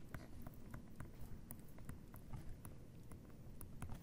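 Faint, irregular taps and clicks of a stylus on a tablet screen as a few words are handwritten.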